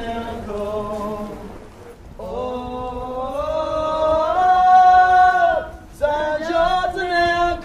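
Unaccompanied singing. There is a phrase, a short break about two seconds in, then a rising line into a long held note, and another phrase near the end.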